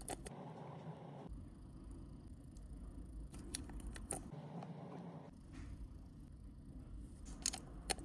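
Light handling noise with a few sharp clicks, from small watch parts being handled: a Casio G-Shock 2100's case and strap pieces.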